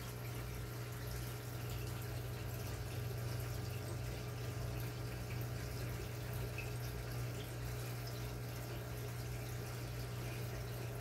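Aquarium water circulation: a steady trickling, splashing rush of water falling into the tank, over a constant low pump hum.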